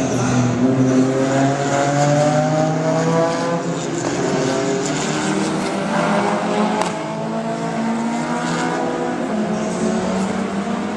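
Historic touring race cars' engines running hard, their notes climbing again and again as they accelerate through the gears, with several cars overlapping.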